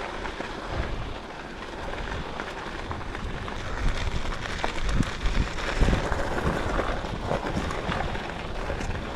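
Wind buffeting the microphone while riding a bicycle, a steady rushing noise with low rumbles and a few low thumps.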